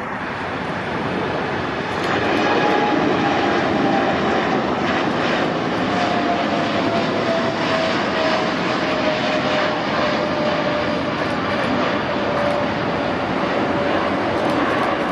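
Boeing 747-8 freighter's four GEnx turbofan engines at takeoff power during the climb-out: a loud, steady jet noise that swells about two seconds in, with a whining tone that slowly falls in pitch as the aircraft pulls away.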